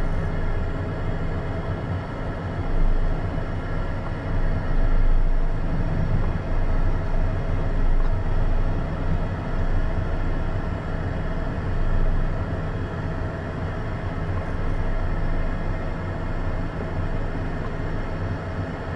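Beechcraft Premier I's twin Williams FJ44 turbofan engines running at low taxi power, heard from inside the cockpit as a steady hum and whine over a low rumble as the jet rolls onto the runway.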